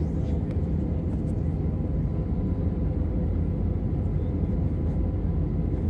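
Steady low drone of jet engines and airflow heard inside an airliner cabin in flight, with a faint steady hum above the rumble.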